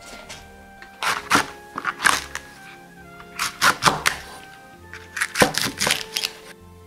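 Kitchen knife chopping through thick green onion (naganegi) stalks onto a wooden cutting board, in four short runs of two to six strokes each, over soft background music.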